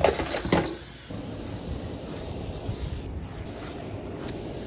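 A few knocks and clatter of plastic toys in a sink in the first second. Then a steady low outdoor rumble of wind on the phone microphone.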